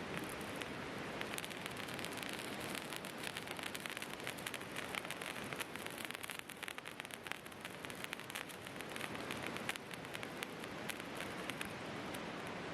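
Wood campfire crackling, with many small irregular pops and snaps over a steady rushing background.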